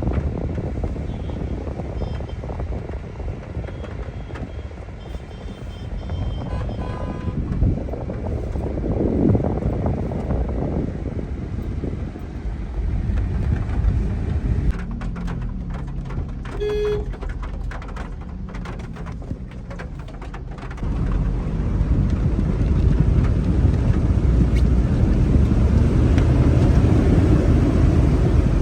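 Car driving through a flooded street in heavy rain: a steady low rumble of engine, tyres and water, which grows louder about 21 seconds in. Short high tones sound over it in the first seven seconds, and a pitched sound near the middle.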